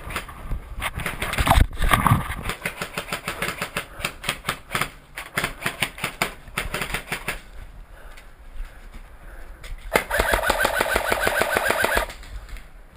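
Airsoft electric gun firing: strings of rapid shots, then near the end a full-auto burst of about two seconds with the motor and gearbox cycling evenly, cutting off sharply.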